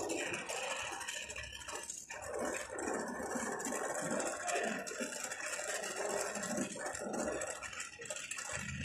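Gas brazing torch hissing steadily as its flame heats a copper refrigerant pipe joint, with uneven lower background noise underneath.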